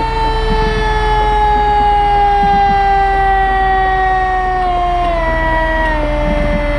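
Fire truck siren sounding a single long wail: its pitch jumps up just before, then sinks slowly and steadily as it winds down, stepping lower twice near the end, over a steady low rumble.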